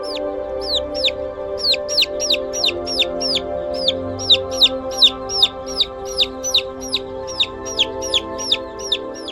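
Chick peeping over and over, a quick, high, sharply falling note about three times a second, over steady background music.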